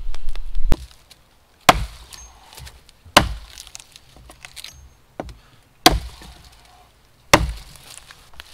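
A blade chopping into wood: about five sharp strikes, roughly one every second and a half, after a low rumbling noise in the first second.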